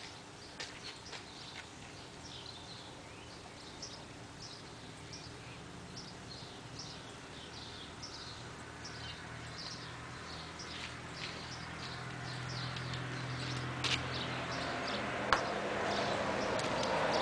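Birds chirping over and over, above a low steady hum. From about halfway through, a broad rushing noise builds up and becomes the loudest sound, with two sharp clicks near the end.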